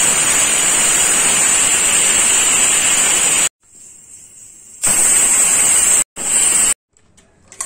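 Pressure cooker whistling: steam hissing loudly out past the weight valve with a shrill high whistle, the sign that the cooker has come up to pressure with the potatoes boiling inside. It comes in three bursts, each cutting off suddenly, and a light clink is heard near the end.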